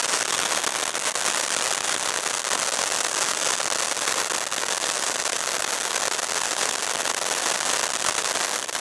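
Ground fountain firework (a 'cocktail' fountain) spraying sparks, giving a steady, dense crackling hiss.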